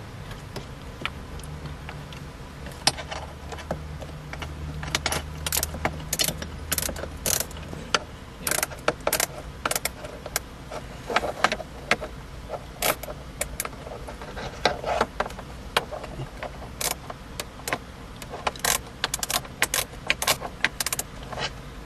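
Irregular metallic clicks and clinks of hand tools and loose bolts while the four bolts behind a car's dashboard trim panel are taken out. A low steady hum runs under the first several seconds.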